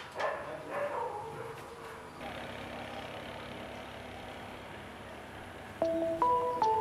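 A metal door latch clicks, followed by a short high squeak falling in pitch as the iron gate swings open. After that only a steady background hiss remains, until plucked guitar music starts about six seconds in.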